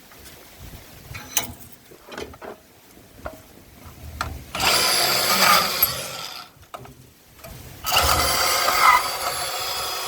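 Milwaukee M18 FUEL cordless deep cut band saw cutting through metal. It runs for about two seconds, stops briefly, then starts again about eight seconds in and keeps cutting. Before that come a few light clicks and knocks of handling.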